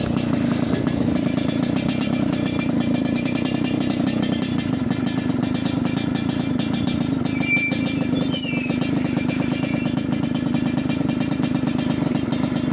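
Yamaha RX-King single-cylinder two-stroke motorcycle engine running steadily at idle with an even, fast putter and a rough 'snoring' (ngorok) note.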